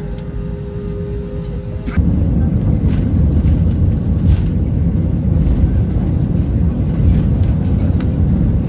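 Jet airliner engines heard from the cabin: a steady whine at first, then about two seconds in a sudden, much louder low rumble as the engines go to takeoff power and the plane speeds down the runway.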